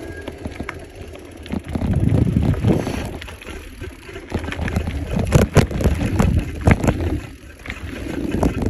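Mountain bike running fast down a dirt trail: knobby tyres rumbling over the dirt, with the bike rattling and clattering over bumps, sharp knocks coming thick and fast in the second half. Wind buffets the bar-mounted microphone.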